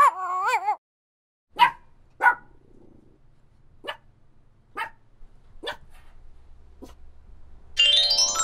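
Puppies yapping: six short, sharp yaps about a second apart, the first two loudest, over a faint low hum. Near the end comes a quick rising run of chime tones.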